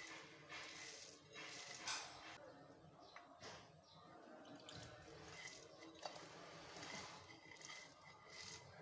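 Faint kitchen clatter: a series of small clicks and knocks of utensils against dishes, with some watery sounds.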